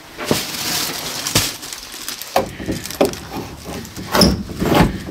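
Old wooden furniture being handled: a rustling scrape, then a string of separate wooden knocks and rattles with a few glassy clinks, the loudest near the end.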